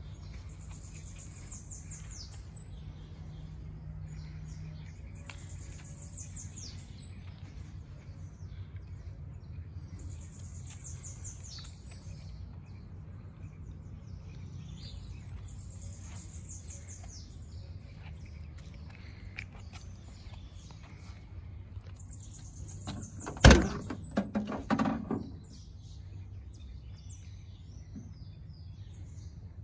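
A bird repeats a short, high chirping phrase about every five seconds over a steady low hum. About 23 seconds in comes a loud thunk with a brief rattle after it, fitting the VW Kombi's driver door being opened.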